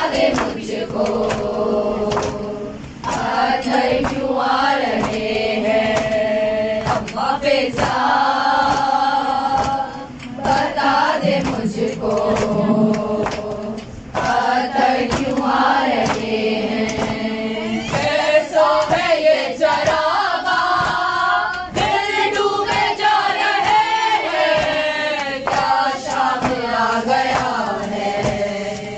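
Women chanting a noha, an Urdu mourning lament for Muharram, together in a group, line by line with short breaks between lines. Frequent sharp slaps sound in time with the chant, as in matam chest-beating.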